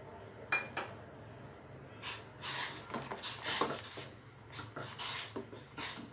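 A metal spoon clinks twice against a stainless steel pot, then scrapes around inside it in repeated strokes while stirring powder into hot water.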